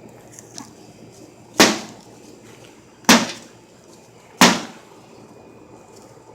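A golf club striking a microwave oven three times, about a second and a half apart, each blow a sharp bang with a short ringing tail.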